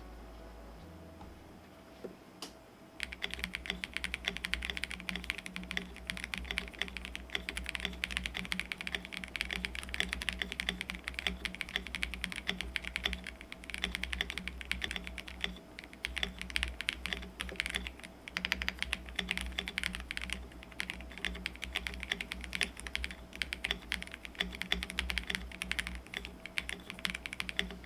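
Fast, continuous typing on a Leobog K81 mechanical keyboard: Ice Crystal linear switches under double-shot PBT keycaps, on a gasket-mounted PC plate in an acrylic case. The key clatter starts about three seconds in, after a single click.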